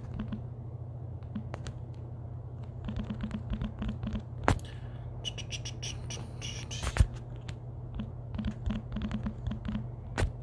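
Computer keyboard typing in short quick runs of keystrokes, with a few louder single clicks and knocks, over a steady low hum.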